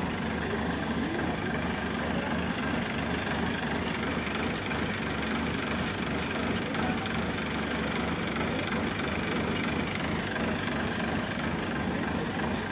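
Rice combine harvester's engine running steadily, an even mechanical hum that does not change.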